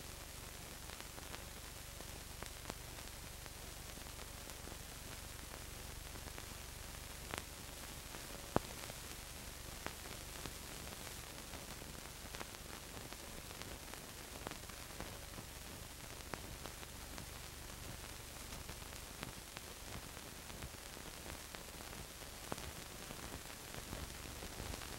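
Steady hiss and low hum with scattered faint clicks and crackles, one sharper click about eight and a half seconds in: the noise floor of a silent archival film transfer, with no sound of the guns or people.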